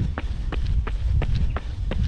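Running footsteps of Nike Kiger 6 trail shoes striking a concrete path, quick and even at about three footfalls a second, over a steady low rumble.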